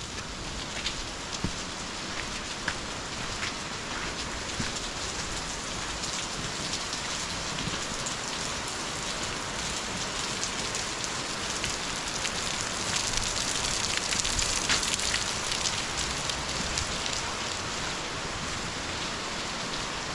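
Falling water: a steady splashing hiss scattered with sharp drop-like ticks, growing somewhat louder in the middle.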